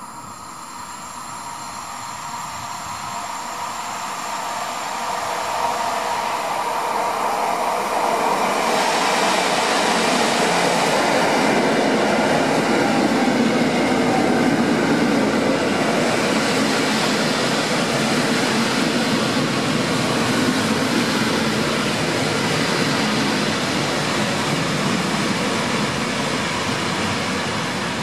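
Two coupled EN57AL electric multiple units running into the station alongside the platform. The rumble of wheels on rail and the running gear grows louder over the first several seconds, stays loud as the cars pass close by, then eases off a little near the end as the train runs on toward its stop.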